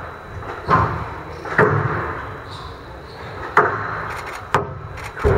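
Squash rally: the ball struck by rackets and hitting the court walls, five sharp, unevenly spaced hits that echo around a large hall.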